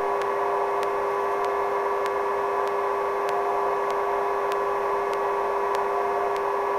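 Steady helicopter hum heard over the radio link. It stays at one level, with a few fixed tones and faint ticks at even intervals.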